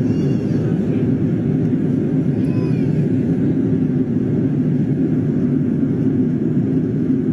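Steady low drone of an airliner cabin in flight: jet engine and airflow noise heard from inside the cabin.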